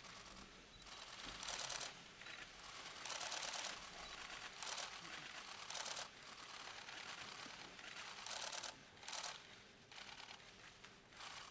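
Camera shutters firing in rapid bursts, several cameras overlapping, in runs of about a second with short gaps between.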